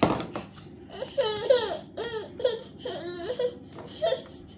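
A baby making a quick run of short, high-pitched vocal sounds, pitch bending up and down, beginning about a second in. A sharp knock sounds right at the start.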